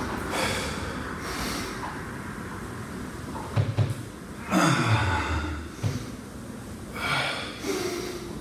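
A man breathing hard while exercising, with four sharp, noisy breaths spaced unevenly. There are a few short low thumps in between.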